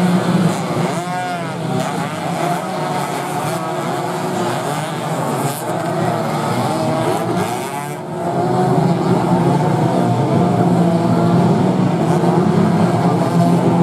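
A pack of 125 cc two-stroke underbone racing motorcycles revving hard, many engines rising and falling in pitch together as they brake and accelerate through corners. The sound jumps louder about eight seconds in.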